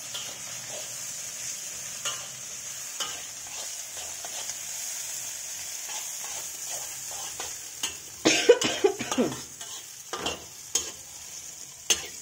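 Chopped vegetables frying in oil in a brass kadhai, sizzling steadily while a metal spatula stirs and scrapes against the pan. A louder run of scraping and knocks comes about eight seconds in.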